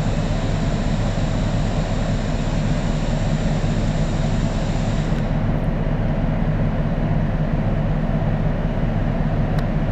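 Diesel engine of an approaching work train, running with a steady low drone. A high hiss over it fades out about five seconds in.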